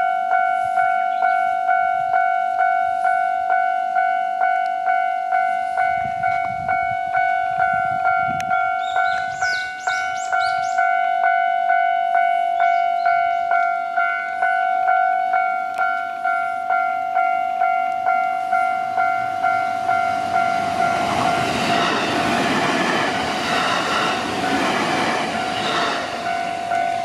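Japanese railway level-crossing warning bell ringing at an even beat of about one and a half strikes a second. A JR Hanwa Line electric train passes through the crossing: its rumble and wheel clatter swell about twenty seconds in and fade near the end while the bell keeps ringing.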